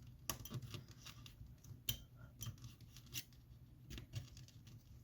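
A pry tool levering and scraping under an iPhone X battery, working it off the phone's strong adhesive using the frame as leverage. It makes faint, irregular small clicks and scrapes, the sharpest a little under two seconds in.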